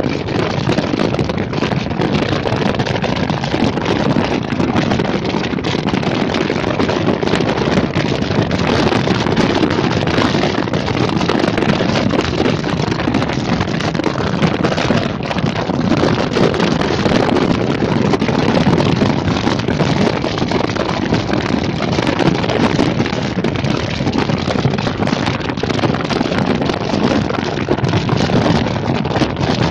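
Loud, steady wind buffeting the microphone, with a low rumble underneath.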